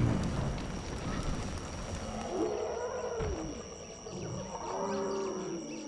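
Deep, drawn-out calls of horned dinosaurs, a documentary sound effect. There are two long calls, each rising and then falling in pitch: the first about two seconds in, the second near the end.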